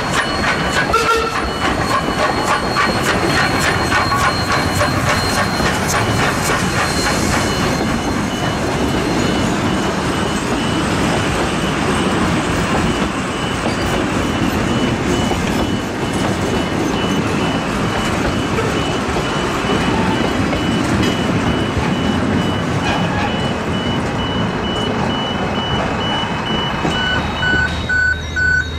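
Steam train (Queensland Rail C17 class locomotive 974 and its carriages) passing close by, wheels clattering rapidly over the rails, with a level crossing alarm beeping over it. The rumble eases near the end as the train clears.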